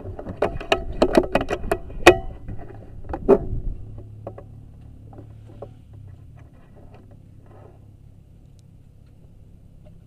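Handling noise from an air rifle with a scope-mounted camera being swung and repositioned: a quick flurry of clicks and knocks, the sharpest about two seconds in and again at three and a half, thinning out to a few faint taps.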